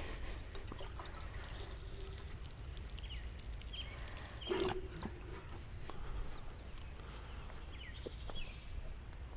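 Outdoor ambience with a steady low rumble and scattered short, falling bird-like chirps, and one louder sound about four and a half seconds in.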